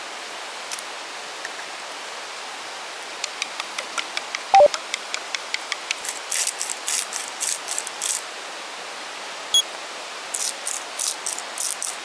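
Steady rush of a shallow river over stones. Over it come quick, even clicks, about five a second, as eggs are beaten in a small aluminium pot, with one ringing metallic clink. Then come two groups of short rattling bursts.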